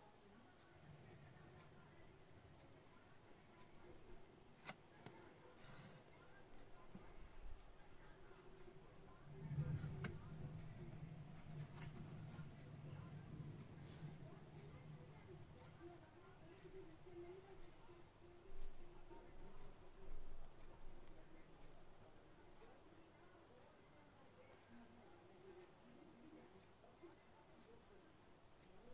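Faint, even chirping of a cricket, several short chirps a second, over a steady high hiss, with a few soft knocks of eggs being handled.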